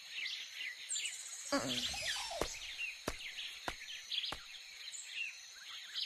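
Forest ambience of many small birds chirping and twittering. Four sharp clicks or taps come at even spacing in the middle.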